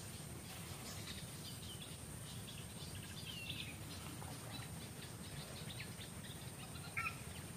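Forest ambience of many short, high bird chirps and calls scattered throughout, over a steady high-pitched whine and a low background hum. One louder, sharp call stands out about seven seconds in.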